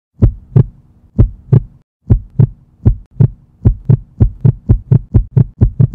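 Heartbeat sound effect: paired lub-dub thumps over a faint steady hum. The beats start slow, break off briefly about two seconds in, then quicken steadily to a fast pulse.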